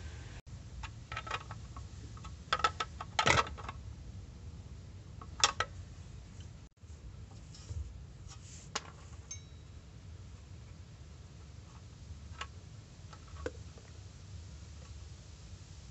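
Scattered metallic clicks and clinks from loosening and unscrewing the oil drain bolt on a car's oil pan. The sharpest cluster comes about three seconds in, with single clinks later, over a steady low hum.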